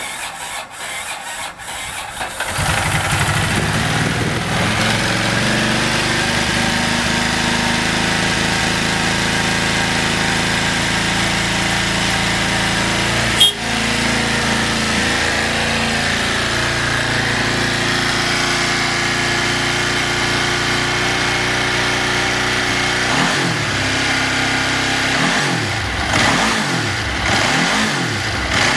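Ducati 999's L-twin engine cranking on the electric starter, catching about two seconds in and settling into a steady idle. There is one sharp click about halfway through. Near the end come several quick blips of the throttle, the pitch rising and falling each time.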